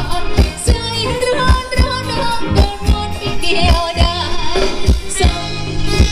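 Live band playing Thai ramwong dance music: a steady drum beat under a sung melody.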